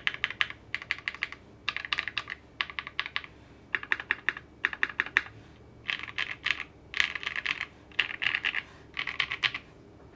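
Typing on a gasket-mounted custom mechanical keyboard (ai03 Vega, leaf-spring FR4 plate, foam-dampened) with lubed, filmed Creameron linear switches and PBT keycaps. Fast bursts of keystrokes with short pauses between them, stopping near the end.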